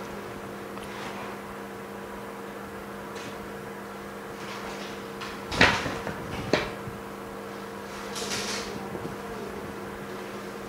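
Mini OCA laminating machine running through its cycle with a steady low hum. Two sharp knocks come a little past halfway, the first the loudest, and a brief hiss follows about eight seconds in.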